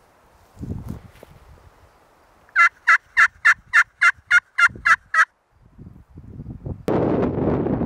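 A hunter's turkey call run through a series of about ten evenly spaced hen yelps, about four a second, as a locator call sent out to draw a gobble from a tom. Near the end a loud rush of noise starts suddenly.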